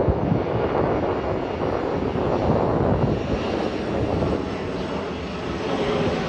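Jet engines of a Boeing 737 airliner flying overhead, a steady, loud rumble.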